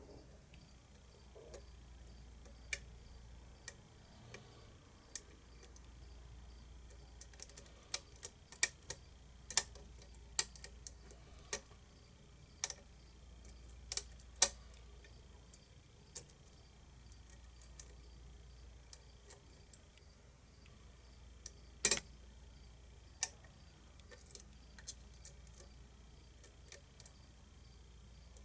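Lock pick and tension wrench working a pin tumbler challenge lock: irregular small metallic clicks and ticks of the pick against the pins, a few sharper and louder than the rest, as a stubborn pin refuses to set.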